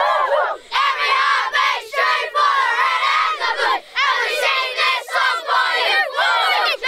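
A group of young boys shouting a chant together in unison, in loud phrases broken by brief pauses.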